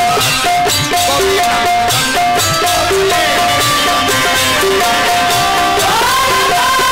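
Instrumental interlude of Bhojpuri dugola folk music: a melody of short repeated notes over a steady drum beat. Near the end a wavering, sliding melody line comes in.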